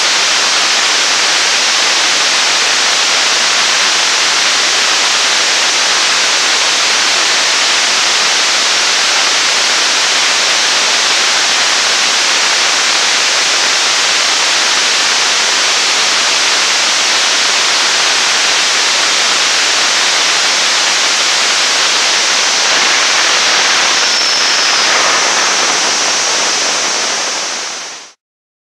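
Staged-combustion liquid-propellant rocket engine of about 9 tonnes thrust firing on a test stand: a loud, steady rushing of exhaust noise, which fades out near the end.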